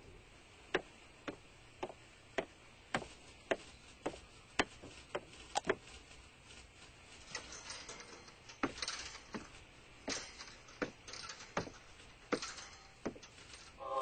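A series of sharp ticks or clicks, evenly spaced at about two a second. About halfway through they give way to less regular clicks mixed with soft rustling.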